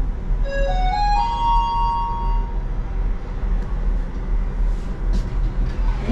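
An electronic chime plays four rising notes, the last one held for over a second, over a steady low hum.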